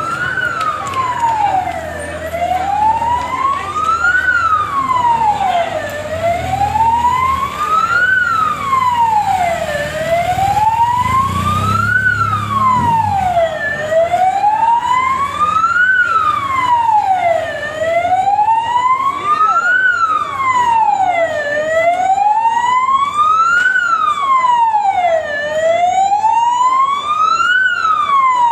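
Emergency vehicle siren sounding a slow wail, rising and falling in pitch about once every four seconds without a break.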